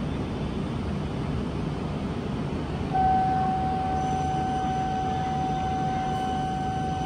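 Steady low rumble of an E5 series Shinkansen train standing at the platform. About three seconds in, a steady high tone starts suddenly and holds.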